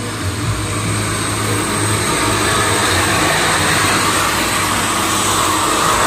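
Road traffic passing close by: a heavy truck's engine and tyre noise swelling gradually louder, with a thin steady high whine throughout.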